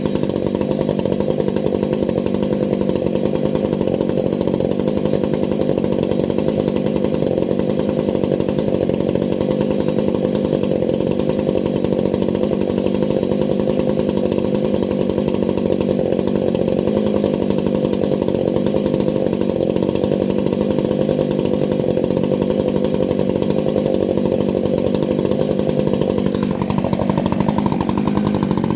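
Stihl MS661 C two-stroke chainsaw held at full throttle, running steadily under load as it rip-cuts along a pine log in a Granberg Alaskan chainsaw mill. Its pitch sags briefly near the end.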